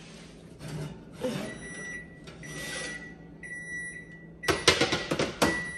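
A metal griddle pan of cookies scrapes along an oven rack as it is pulled out of an electric oven. It then clatters sharply in a quick cluster of knocks about four and a half seconds in, the loudest part. A steady high electronic appliance tone sounds underneath from about a second and a half in.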